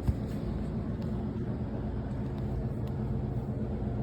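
Steady low mechanical hum, a continuous drone with no break or change.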